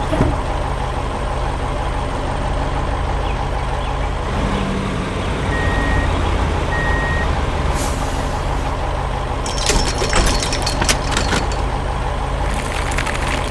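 Heavy truck engine running steadily, with two short reversing beeps about halfway through and bursts of hissing, rattling noise in the second half.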